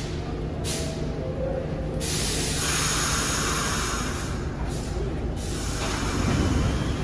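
A New York City subway train standing at the platform, its air system letting out bursts of hiss, the longest running for a couple of seconds starting about two seconds in. Near the end a low rumble rises as the train begins to pull out.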